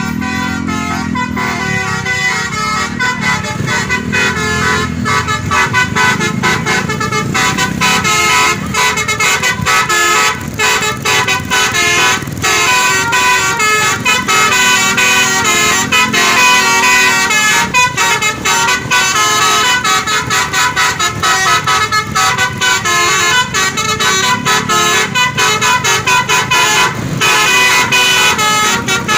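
Basuri 'telolet' bus horn, a set of electric trumpet horns, playing a melody of quickly changing notes, with the bus engine running underneath.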